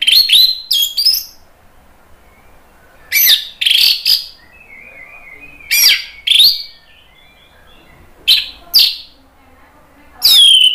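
Orange-headed thrush singing loudly in short bursts of sharp, high, falling notes, about five phrases of two to four notes each, a couple of seconds apart, with faint soft twittering between them.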